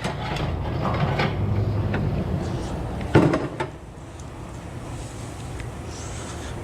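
Hand tools being gathered and handled: scattered light clicks and one sharp knock about three seconds in, over a steady low hum that weakens about four seconds in.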